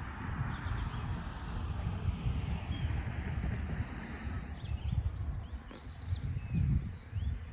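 Honeybees buzzing around lilac blossoms, with small birds chirping repeatedly over a low, uneven rumble.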